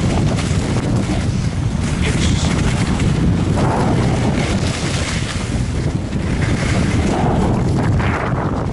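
Wind buffeting the camera microphone, a loud, uneven low rumble with gusts that ease off near the end.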